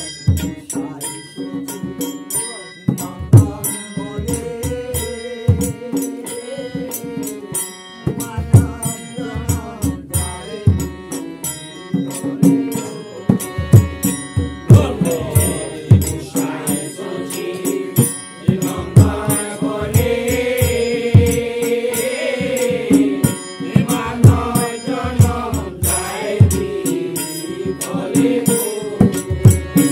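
Group singing of a Bengali Vaishnava guru-tattva devotional song (bhajan), a lead voice with others joining in, accompanied by harmonium, a two-headed barrel drum beaten in a steady rhythm, and jingling hand cymbals.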